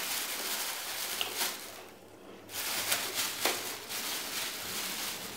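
Thin plastic bag rustling and crinkling in irregular handfuls while a lump of jaggery is handled and unwrapped, with a brief lull about two seconds in.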